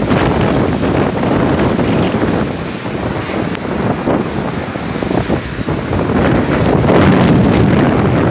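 Strong wind buffeting the microphone: a loud, uneven rumble that eases a few seconds in and picks up again near the end.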